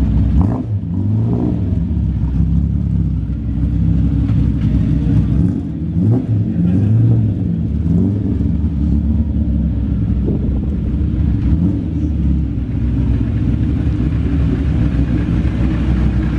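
TVR sports car's engine running at low revs through its newly fitted exhaust back box as the car drives slowly out, with brief rises in revs about a second in and again around six seconds in.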